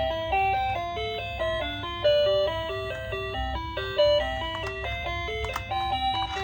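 A simple electronic tune of quick, stepping beeping notes, like a toy's jingle, playing over a steady low hum, with a few sharp clicks about two-thirds of the way through.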